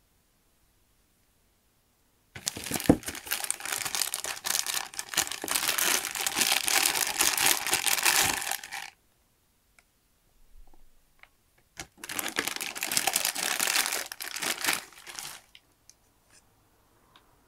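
Thin clear plastic bag crinkling and rustling as a plastic display base is worked out of it, in two long spells, the first about six seconds and the second about three. A few faint clicks fall between the spells and near the end.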